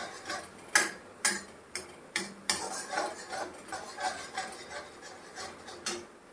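Metal spatula stirring and scraping a frying onion-and-spice masala around a metal kadhai, with a series of sharp clinks as it strikes the side of the pan. The stirring stops about six seconds in.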